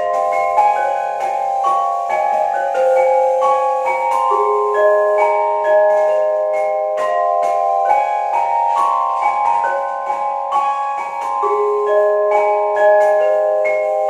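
Two vibraphone-type metal-bar mallet keyboards with tube resonators played together as a duet with soft yarn mallets: a steady stream of struck notes in the middle register, each ringing on for a second or more so that the notes overlap.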